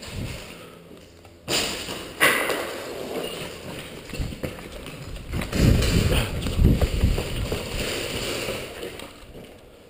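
Footsteps and gear rustling on a gritty concrete floor as the camera wearer moves quickly, picked up by a body-worn camera, with irregular heavy thuds loudest in the middle and two sharp knocks about one and a half and two seconds in.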